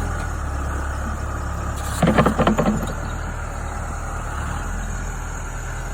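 Diesel engine of a backhoe loader running steadily, with a brief burst of clattering knocks about two seconds in.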